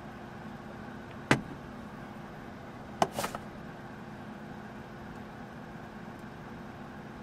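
A steady mechanical hum, with two sharp knocks about a second and a half apart; the second knock is followed by two lighter clicks.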